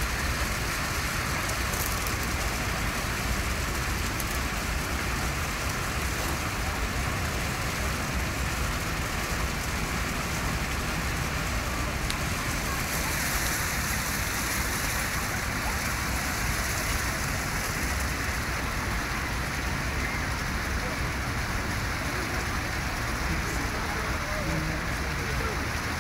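Steady, unchanging rushing hiss with a low rumble beneath it.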